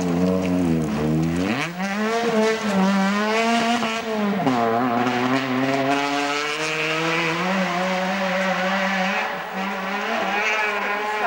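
Rally car's engine at full effort on a gravel stage. The revs fall as it slows, then climb hard about two seconds in. They drop and climb again at a gear change about four and a half seconds in, then hold high as the car drives on.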